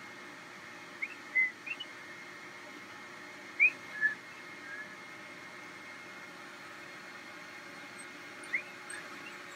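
Black poodle puppies whimpering: short high-pitched squeaks that slide up or down in pitch, a few together about a second in, a louder pair near four seconds, and another near the end, over a faint steady background hum.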